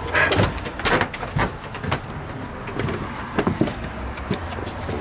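Scattered knocks and clicks from a house door and footsteps on a wooden deck, over a steady low rumble.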